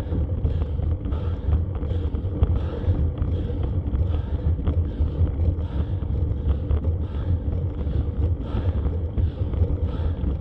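Steady low rumble of wind buffeting a bicycle-mounted camera's microphone, mixed with tyre noise on a wet road during a slow uphill ride, with a faint uneven pulsing.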